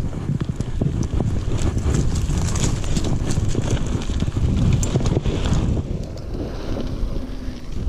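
Mountain bike rolling down a bumpy dirt trail: a rumble of wind buffeting the microphone, with many small clicks and knocks as the bike rattles over the ground. It eases off about six seconds in.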